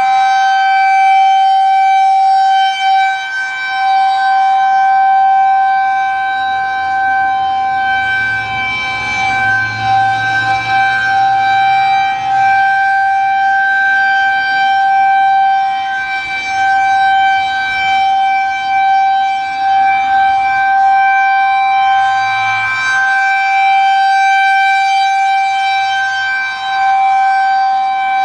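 Federal Signal 2001-130 outdoor warning siren sounding the Full Alert signal: one long steady wail held at a constant pitch, with no rise and fall. Its loudness swells and dips slightly over time.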